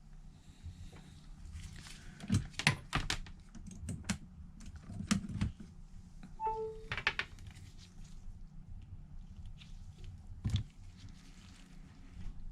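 Scattered light clicks and taps of small tools and phone parts being handled on a workbench during a phone screen repair, with a short beep about six and a half seconds in.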